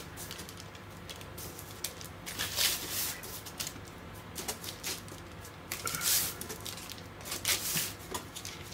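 Baking paper rustling and crinkling in short bursts as hands press and crimp the edges of a calzone, over a low steady hum.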